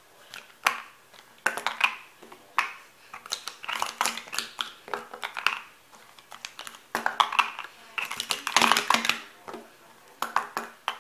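Plastic sport-stacking cups being rapidly stacked up and taken down on a mat: quick clacking and sliding of the cups against each other in irregular flurries, busiest about seven to nine seconds in.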